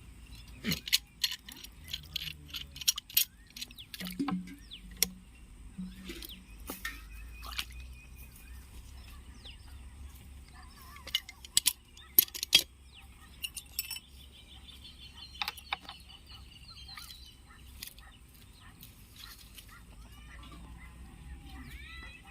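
Scattered sharp clicks and knocks of hard plastic parts of a PVC ball valve being handled and fitted together, with birds chirping faintly in the background.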